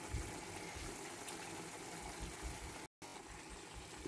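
Thick chicken curry gravy simmering and bubbling in a pan as it is stirred with a wooden spatula, with soft irregular low thuds. The sound drops out for an instant about three seconds in.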